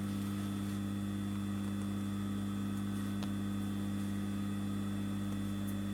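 Steady electrical hum, with one faint click about three seconds in.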